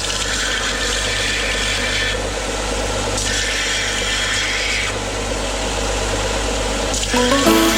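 Electric sander running steadily while small 10 mm wooden dowels are sanded, with a rougher, hissier sound during two spells of contact. Music comes in near the end.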